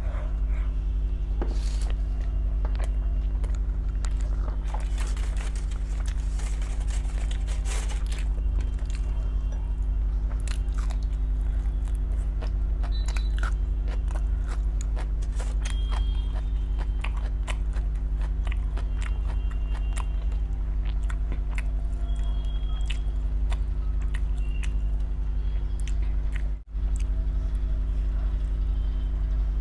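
Close-up eating sounds: chewing and biting with small wet clicks and crackles, over a steady low electrical hum. The sound drops out for a moment near the end.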